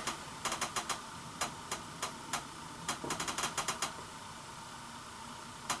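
Light, irregular clicks and ticks in short uneven clusters, with a dense run about three seconds in and a pause of about a second and a half before the clicks return near the end.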